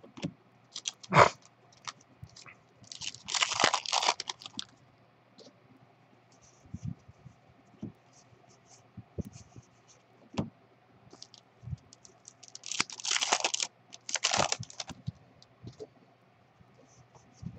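Plastic trading-card pack wrapper crinkling and tearing in two bursts, about three seconds in and again about thirteen seconds in. Soft clicks and scrapes of cards being handled and shuffled fall between the bursts.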